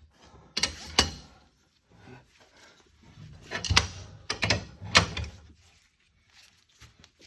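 Sharp metal clanks and knocks of tools working a screw-type axle puller that draws a tight axle shaft out of the axle housing. The loudest clanks come about a second in and again around four to five seconds.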